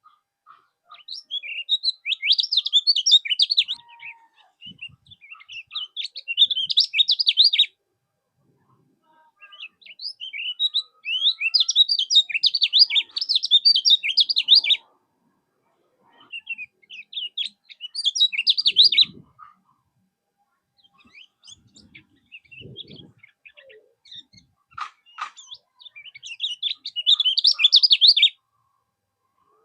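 Kecial kuning songbird singing: fast, high chattering phrases of rapid chirps lasting two to five seconds each, with short pauses between them. A few faint low thumps come in the second half.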